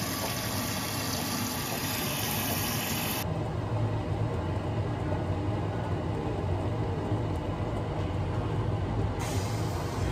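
Keurig single-serve coffee maker running its brew cycle: a steady, mechanical pump hum and whir as it heats and pushes water through the pod.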